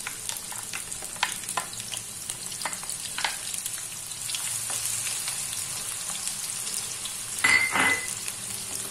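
Finely chopped onions sizzling steadily as they fry in hot oil in a karahi, with a spatula clicking against the pan as it stirs them over the first few seconds. A louder, briefly ringing clink comes near the end.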